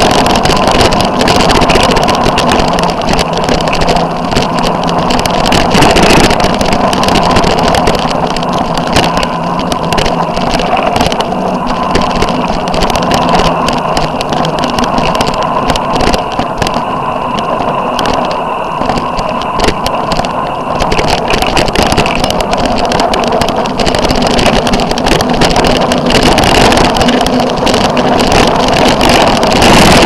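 A vehicle engine running at fairly steady revs, with constant rattling and knocking as it drives over a rough dirt track.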